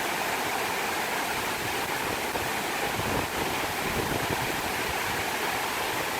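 Waterfall water rushing in a steady, even roar, with some irregular low rumbling about halfway through.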